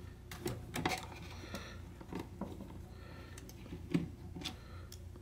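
Irregular light clicks and taps of a screwdriver against screws and the plastic case of a portable radio cassette player as screws are taken out, over a faint low hum.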